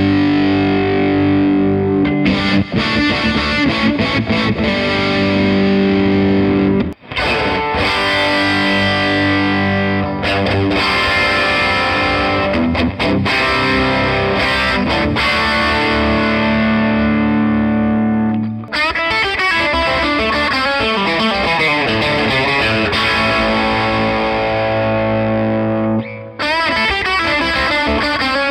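Electric guitar played through a JK15 15-watt two-EL84 valve amp. For the first several seconds it is an overdrive pedal driving the amp's clean mode; after a brief break about seven seconds in, it switches to the amp's own natural power-amp overdrive with reverb mixed in, in sustained distorted chords and notes.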